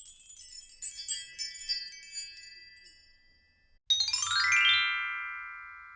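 Sparkly, high twinkling chimes for about three seconds, then a brief pause, then a quick rising run of bell-like tones that rings on and slowly fades: an edited-in chime transition effect.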